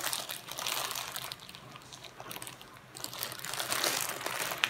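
Thin clear plastic bag crinkling as it is handled and unwrapped. The crinkling comes in two spells, with a quieter pause in the middle.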